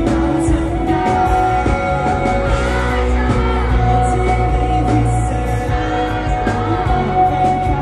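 Live pop-rock band: a male singer singing over electric guitar and bass.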